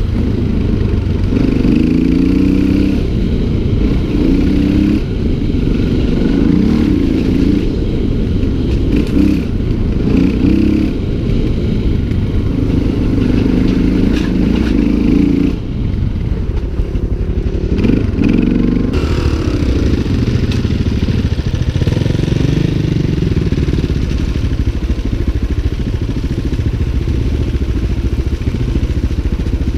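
Motorcycle engine under the rider, its pitch rising and falling as the throttle opens and closes on a dirt trail, dipping briefly about halfway through. The bike clatters over the rough ground.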